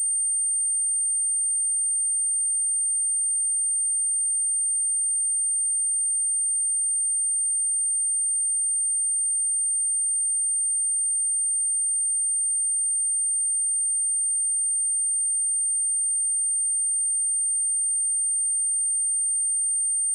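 A steady, very high-pitched pure electronic tone held at one pitch.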